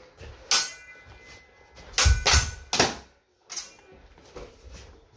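Steel sparring swords clashing: a ringing clash about half a second in, a quick run of three hard clashes about two seconds in with low thuds beneath them, and a lighter clash a second later.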